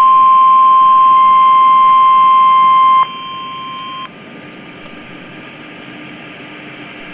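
NOAA Weather Radio 1050 Hz warning alarm tone, sounded for a required weekly test, playing loud and steady from two weather radio receivers at once. The tone cuts off in two steps, most of it about three seconds in and the rest about a second later, leaving faint radio hiss.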